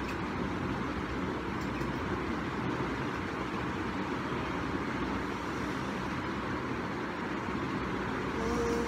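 Steady background whooshing noise with a low hum underneath, unchanging throughout; a short faint tone sounds near the end.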